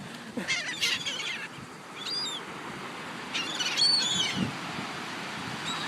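Birds calling, a few short calls about two seconds in and again around four seconds in, over a steady background hiss.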